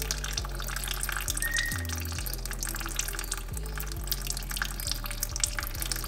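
Brake fluid mixed with air sputtering out of an open caliper bleeder screw and trickling down the bleed hose into a catch container, a steady crackly trickle: air is still being purged from the brake line. Background music with a steady bass line plays under it.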